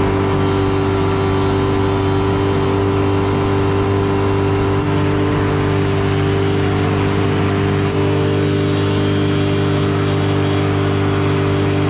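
Hovercraft's 100 hp two-stroke engine running at a steady, unchanging speed under a rushing noise.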